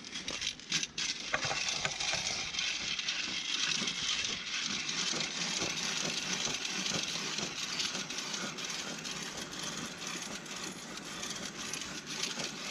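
Hand-cranked ice auger boring through ice: a few sharp clicks, then a steady crisp grinding and scraping as the blades cut into the ice.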